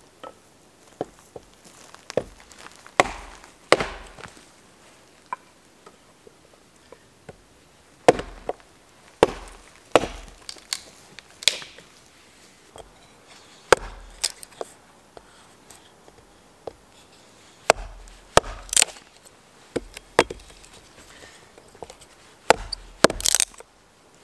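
Hatchet splitting wood into kindling on a log: a series of sharp chops at irregular intervals, some in quick pairs and clusters with a dull thud from the log beneath.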